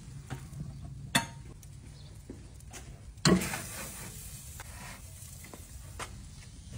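Cooking on a charcoal grill: scattered light clicks and crackles over a low rumble, a sharp click about a second in, and a louder clatter with a short hiss a little past three seconds in, from the skillet being handled on the grill grate.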